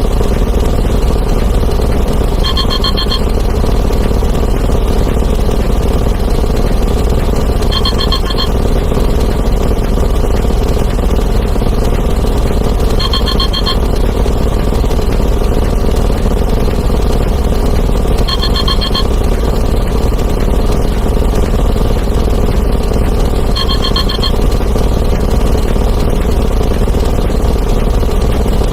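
A dense, steady wall of many overlapping sound effects (explosions and breaking glass) running together into a continuous engine-like rumble. Over it, a short trilled electronic ring sounds about every five seconds, five times.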